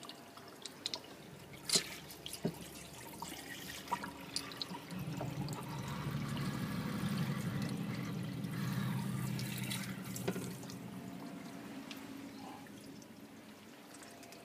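Water streaming from the outlet of a newly fitted Samsung DA29-10105J-type external fridge water filter into a stainless steel sink drain, flushing excess carbon fines out of the new filter. The flow is strongest from about five to ten seconds in, then tails off, with a few light knocks before it builds.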